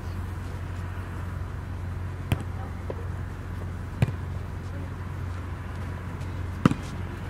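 Volleyball being played: a few sharp smacks of the ball about two seconds apart, the last a quick double, over a steady low hum.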